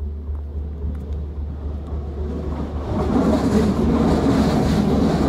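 Passenger train approaching. Its rumble and rattle grow louder about halfway through, then hold steady, over a steady low hum.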